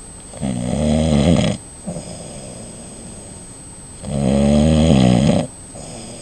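A man snoring loudly in deep sleep: two long, rattling snores, one about half a second in and one about four seconds in, each lasting about a second and a half, with a softer breath after each.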